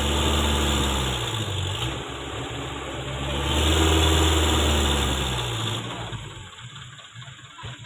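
A vehicle engine revs hard under load in deep mud, in two long swells of a couple of seconds each, then dies back toward the end.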